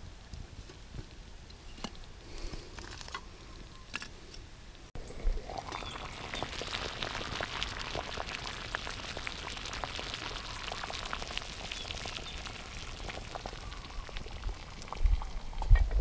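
Wood fire crackling with a few sparse snaps. About five seconds in, a pot of water takes over at a full rolling boil: a dense, steady bubbling hiss full of small pops. Low thumps come near the end.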